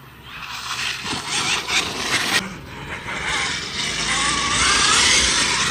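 Electric RC truck driving over loose dirt close by. Its tyres crunch and throw grit with many quick clicks, then its motor whines in a pitch that wavers and rises as it speeds up in the second half.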